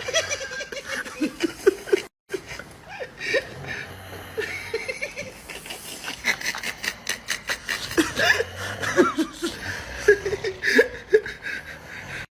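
People laughing and snickering in short bursts, mixed with sharp clicking noises; the sound drops out briefly about two seconds in.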